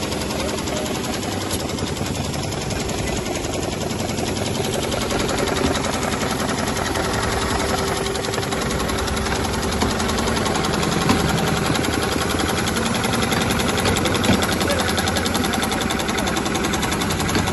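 Dürkopp Adler heavy-duty sewing head on an automatic CNC belt-sewing machine running, its needle stitching at a rapid, steady rate, with a few light clicks.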